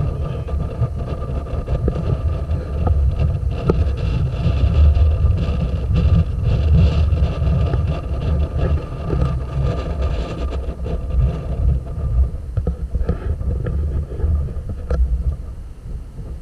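Wind buffeting a small camera's microphone on the deck of a moving passenger boat, a heavy uneven rumble over the steady hum of the boat's engines. It drops to a quieter hum near the end.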